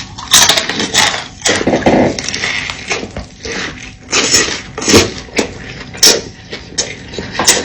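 Close-miked eating sounds: irregular crunches and clicks of chewing, with no talking.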